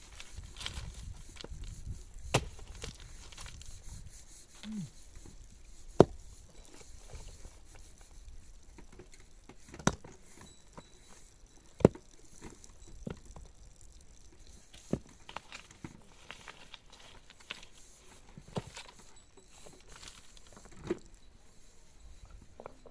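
Sharp, isolated knocks every few seconds, irregularly spaced, over a faint background.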